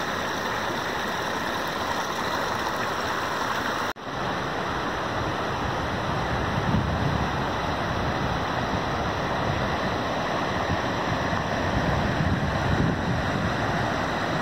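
Mountain stream cascading over rocks and stone steps: a steady rush of running water. The sound cuts out for an instant about four seconds in, then the rush resumes.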